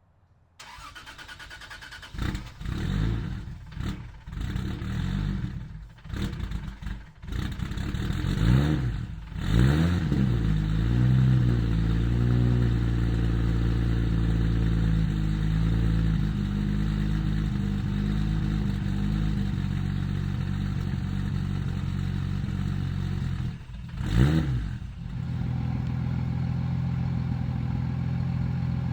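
Straight-piped, single-turbo Toyota JZ straight-six in a Lexus IS300, run through a 3-inch straight pipe. It is revved in several short blips, then given a longer rev about eight seconds in that settles into steady running. There is one more quick rev near the end.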